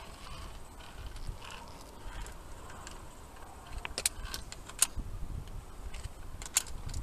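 Via ferrata lanyard carabiners clinking, with a few sharp metallic clicks from about four seconds in, over a low rumble.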